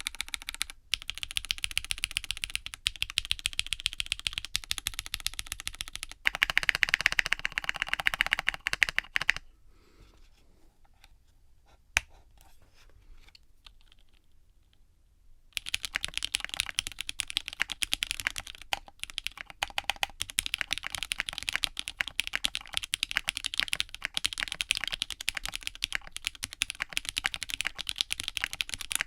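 Typing on a 60% keyboard in a walnut case with Gateron Pro Yellow linear switches, gummy o-ring mounted on silicone cord stock: a fast, even stream of key clacks, louder and denser for about three seconds some six seconds in. Then comes a pause of about six seconds broken by a single click, and the fast typing resumes.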